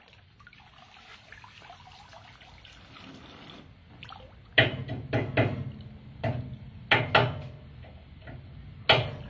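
Water in a toddler's inflatable paddling pool: a few seconds of even running water, then a string of sharp splashes from about four and a half seconds in as the water is slapped, with one more just before the end.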